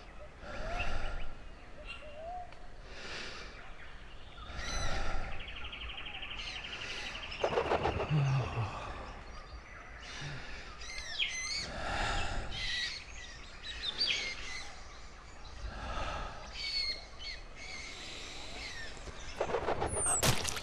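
Mixed birdsong: many birds chirping and whistling, with a rapid trill a few seconds in, over soft rushing sounds that come every second or two. A sharp splat near the end.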